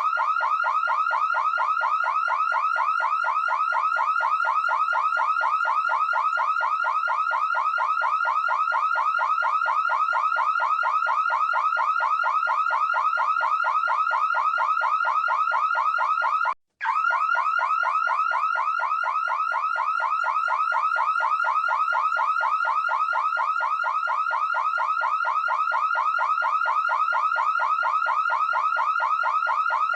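Electronic alarm siren sounding a rapid, evenly repeating upward sweep, with a short cut-out about seventeen seconds in.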